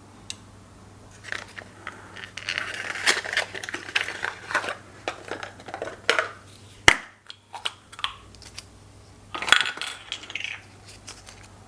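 Hands handling a 35mm film camera and film cartridge: a string of small plastic clicks and rattles with bursts of rustling, and one sharp click about seven seconds in.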